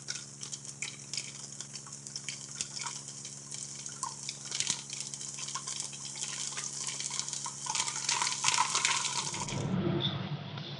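Crackling, fizzing hiss full of small clicks over a steady low hum. It cuts off about nine and a half seconds in, giving way to duller room noise.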